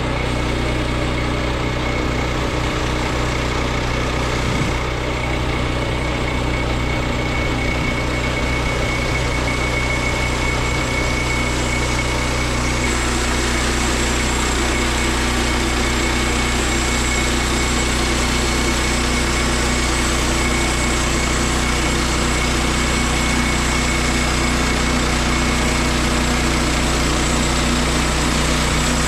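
Engine of a portable bandsaw mill running steadily at constant speed, with a slight change in its tone about twelve seconds in.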